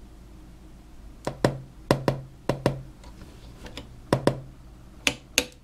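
Heathkit IM-13 VTVM's rotary function switch clicking through its detents in quick pairs, flicked back and forth between AC and DC about five times during the AC balance adjustment.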